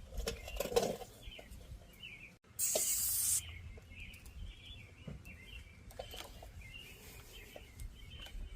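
Birds chirping in the background, with light handling knocks early on. About two and a half seconds in comes a short spray hiss from an aerosol can, lasting under a second.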